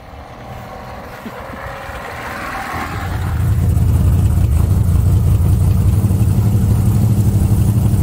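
Custom van's engine running, heard from inside the cab as the van drives. It builds up over the first three seconds to a loud, steady low rumble.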